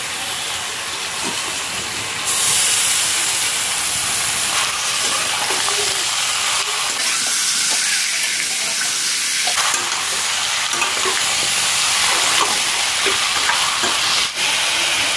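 Marinated meat sizzling in hot oil in a metal kadai as it is tipped in onto fried onions and stirred with a spatula, the spatula scraping the pan. The sizzle jumps louder about two seconds in.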